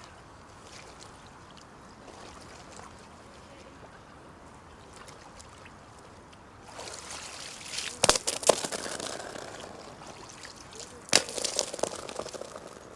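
Icy water splashing and sloshing in a hole cut in a frozen lake as the ice in it is broken and pushed about by hand, with sharp knocks of ice, loudest twice, about three seconds apart. Quiet for the first several seconds before the splashing starts.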